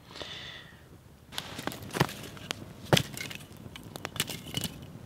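Split firewood being laid onto a burning campfire: a run of sharp wooden knocks and clatters, the loudest about two and three seconds in.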